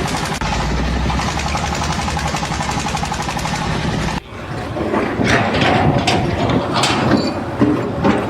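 A heavy engine or machine running steadily. About four seconds in it stops suddenly and gives way to scattered clanks and knocks.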